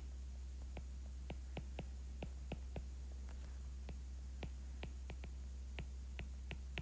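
Light stylus taps and clicks on a tablet screen as words are handwritten, coming a few a second at uneven spacing, over a steady low hum.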